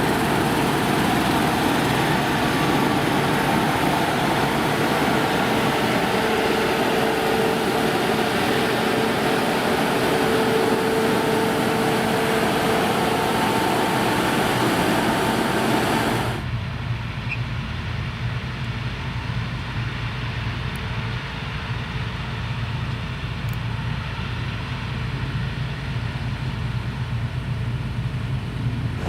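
Combine harvester running at work: a steady machine din with high held whines. More than halfway through it cuts off suddenly, leaving only a lower, steady engine drone.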